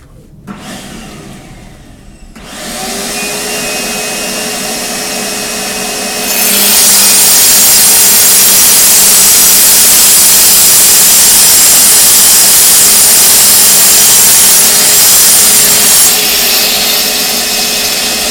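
Electric masonry cutting tool starts up and runs free, then about six seconds in bites into a concrete paving block with a loud, harsh grinding for about ten seconds before easing back to a lighter run.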